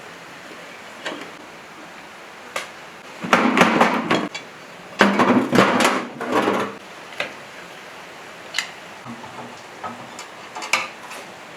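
Metal tools and engine parts clanking and scraping as an old diesel engine is being dismantled: scattered knocks, with two louder spells of clatter a few seconds in.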